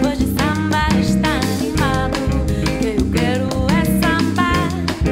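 Background music: a singer over a band with drums and a steady beat.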